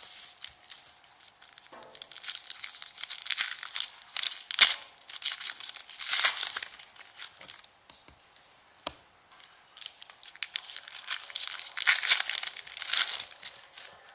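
Trading-card packaging being torn open and crinkled by hand: several bursts of crackly plastic and foil rustling with sharp clicks and snaps in between.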